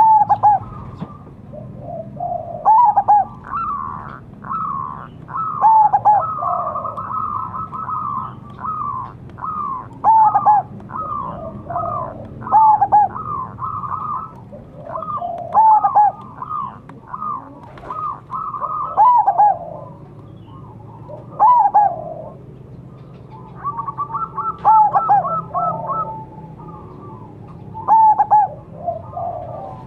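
Zebra doves (perkutut) cooing in quick runs of short falling coo notes every couple of seconds, their calls overlapping at times. A faint low hum runs underneath.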